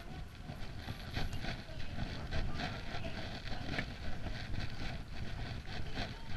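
Wind rumbling on the microphone, with frequent irregular ticks and taps over it.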